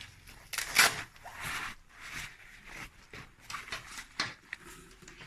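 Packaging being handled: rustling and scraping with small knocks, the loudest scrape about a second in.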